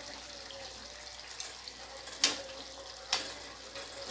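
Chicken frying in a metal kadai, a steady sizzle, with three sharp metal clinks of a spoon against the pan, the loudest about two seconds in, as ginger-garlic paste is added.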